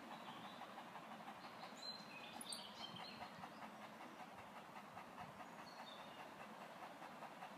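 A dog panting quickly and steadily, faint. A few short bird chirps come about two to three seconds in.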